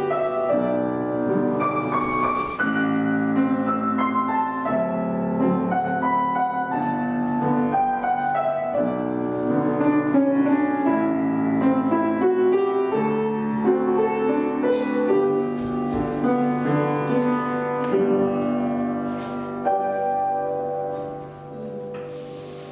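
Piano playing a slow classical accompaniment for a ballet barre exercise, note following note, dying away near the end.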